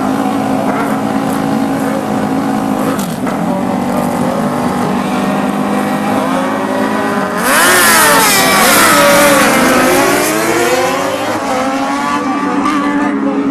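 Superbike racing motorcycles idling together on the starting grid, then revving and pulling away as a pack about seven seconds in, the engine notes climbing, dipping and climbing again as they accelerate through the gears.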